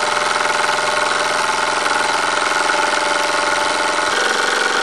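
Wilesco D222 electrically heated toy steam engine running steadily on live steam, a fast, even beat from its cylinder and moving parts.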